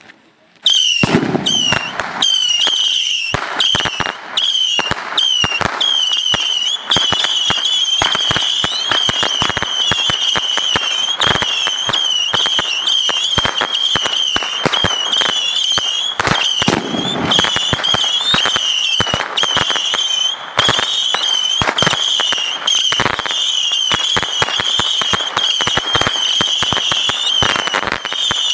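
A compact 300-shot rocket-launcher firework battery firing its small rockets in rapid succession, starting under a second in: a steady, wavering high whistle over dense rapid cracks and pops.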